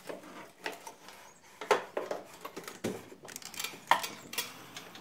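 Wooden folding attic ladder being pulled down from its ceiling hatch and climbed: a series of separate knocks and clatters from the wooden sections and their spring-loaded metal hinges.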